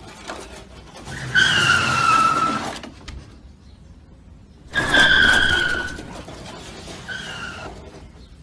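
French bulldog whining in high, slightly falling squeals, three times, the last one short.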